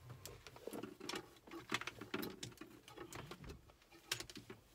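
Handling noise: irregular rustling and light clicks as the recording phone is moved about and brushes against clothing.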